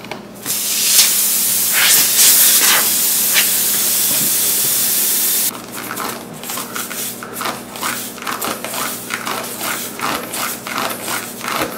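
Air hissing steadily out of a punctured car tire for about five seconds, cutting off suddenly, followed by a run of short scraping strokes at about three a second.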